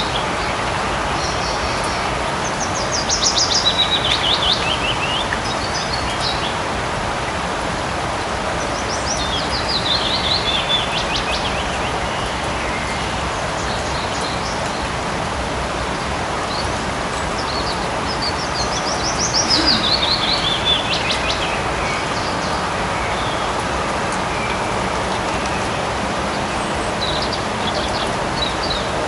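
Steady light rain falling in a forest, with a songbird singing a quick descending trill three times and a few short chirps in between.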